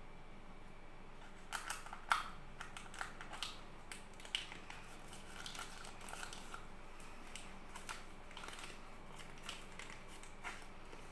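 Hands crinkling and handling the thin plastic wrapper and plastic cup of a Cadbury Dairy Milk Lickables, with scattered sharp crackles and clicks, the loudest about two seconds in.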